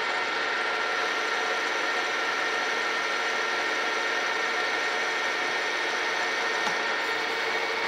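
Metal lathe running under power while a carbide insert takes a light 10 thou finishing cut on a steel shaft. It is a steady mechanical running sound with a high whine of a few steady tones.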